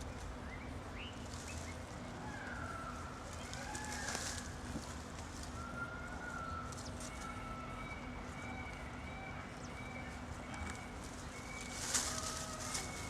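Birds calling outdoors: a few short rising chirps, then long thin whistled notes, over a low steady background hum. Brief rustling noises come about a third of the way in and again near the end.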